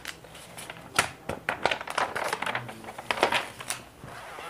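Notebook paper rustling and crinkling as a page is turned over, with several sharp crackles of the sheet.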